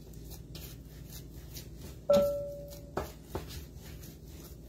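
Pizza dough being kneaded by hand on a wooden board, with soft rubbing and pressing. About two seconds in, a sudden clear ringing tone sounds for just under a second, followed by two light knocks.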